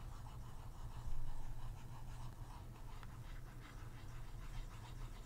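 Stylus scratching over a drawing tablet's surface in short, irregular strokes, with a steady low hum underneath.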